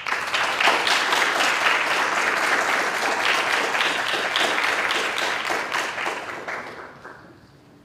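A small audience applauding: many hands clapping at once, fading out over the last second or so.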